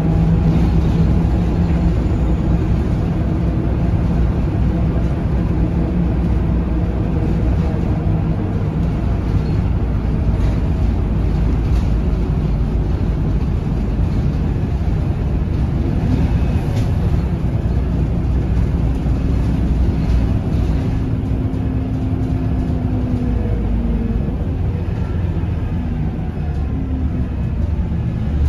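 Scania L94UB city bus under way, heard from inside the passenger cabin: its nine-litre five-cylinder diesel engine running steadily under the floor, with tyre and road noise.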